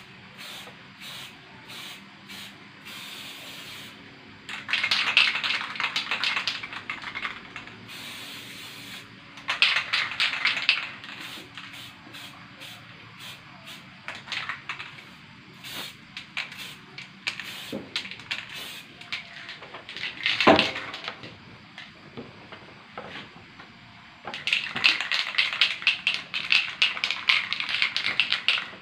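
Aerosol spray paint can hissing in repeated bursts as white paint is misted onto a ceiling, with three longer sprays and several short ones. A brief sharp sound about two-thirds of the way through is the loudest moment.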